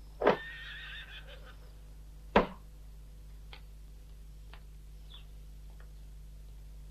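A horse whinnying once, a wavering call of about a second that begins with a sharp thump. A single loud, sharp knock follows about two and a half seconds in, with faint scattered clicks around it.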